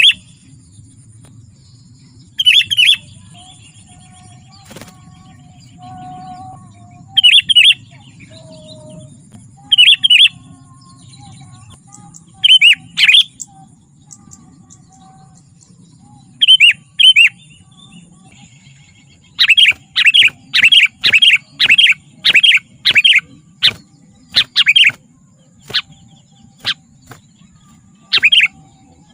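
Sooty-headed bulbul (kutilang) calling with short, loud chirps, singly or in pairs every few seconds. About twenty seconds in comes a quick run of about a dozen calls, roughly two a second.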